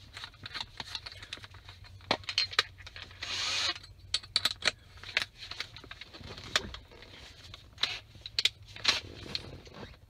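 Scattered clicks, taps and light rattles of a cordless drill and bits being handled while a bigger drill bit is fitted, with a short rasping burst about three seconds in.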